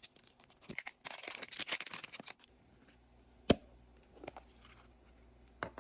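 Small plastic wrapper crinkling and tearing open for about a second and a half, followed by three sharp plastic clicks, the first the loudest.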